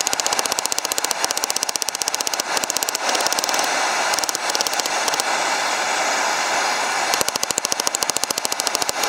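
Hand hammer striking hot steel bar stock on a steel I-beam anvil in a fast, steady run of ringing blows, drawing the tong reins down thinner. The blows are strongest near the end.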